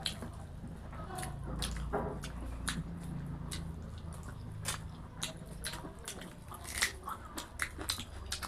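Close-miked eating sounds: chewing with many short wet mouth clicks and smacks from people eating rice and fried food, over a low steady hum.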